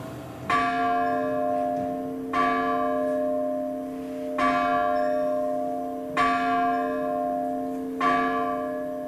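A large bell tolling, struck five times about every two seconds, each stroke ringing on and slowly fading. It is heard from a video soundtrack played back over a hall's loudspeakers.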